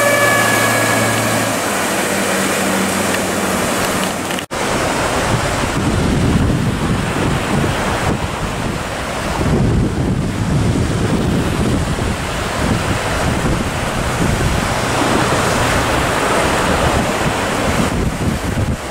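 A passing boat's outboard motor is heard briefly at the start and fades. After a cut about four seconds in, wind buffets the microphone over the sound of choppy sea and breaking waves.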